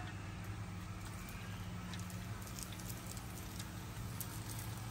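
Quiet cooking sounds from a pot of semolina halwa on a wood-fired stove as chopped dry fruit is poured in: scattered small clicks and crackles over a steady low hum, with one sharper click at the start.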